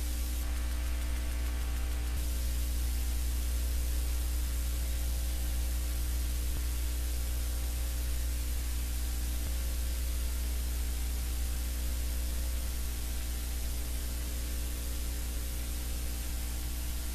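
Steady static hiss with a low electrical hum from an outdoor livecam's audio feed, unchanging throughout.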